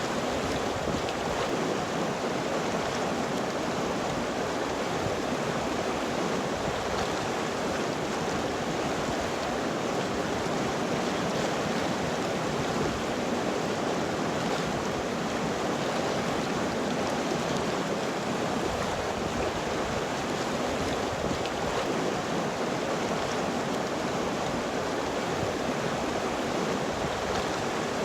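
River water flowing steadily over rocks, an even rushing without pauses.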